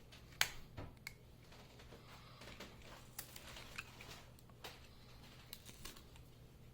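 Scattered small clicks and taps of hands handling a smartphone and repair tools on a work surface, with one sharper click about half a second in.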